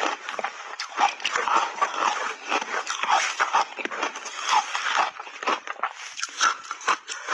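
Close-miked chewing of crunchy refrozen block ice, a dense run of sharp crunches.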